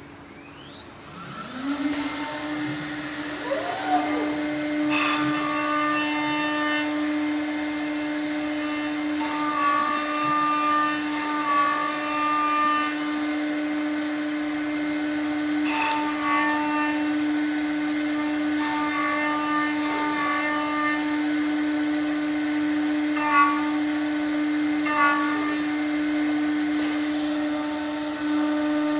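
CNC machining centre's router spindle spinning up during the first two seconds to a steady high whine, then routing and drilling a workpiece. The cutting tone changes pitch from pass to pass, and there are a few sharp clicks.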